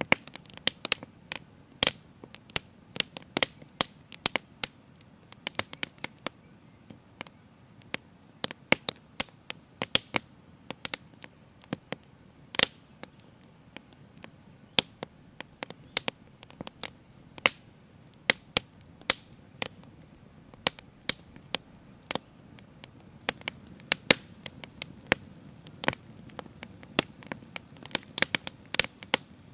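A live fire crackling, with irregular sharp pops several times a second over a faint low rush.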